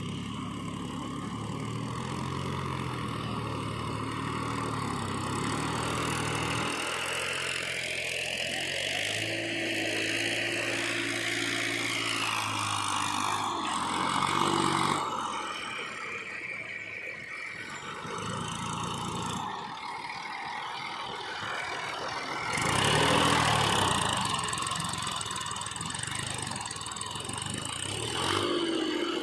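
Diesel engines of a JCB backhoe loader and farm tractors running and working, their pitch rising and falling as they rev up and settle back. The engines swell loudest about three-quarters of the way through.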